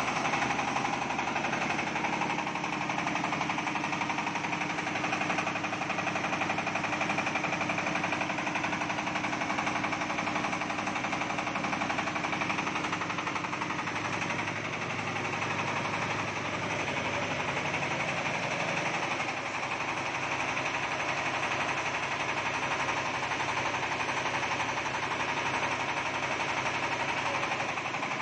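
Diesel engine of a mobile rice mill running steadily with a fast, even diesel clatter; its tone shifts slightly about halfway through.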